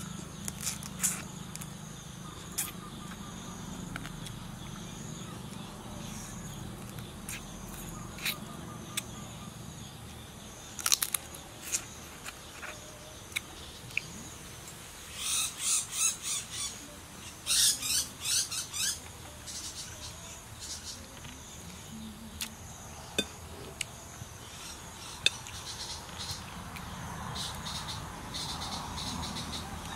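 Close-up eating sounds: a person sucking and chewing on salty crab, with scattered sharp clicks and a run of loud, quick noisy bursts a little past halfway. A steady insect chirr runs underneath.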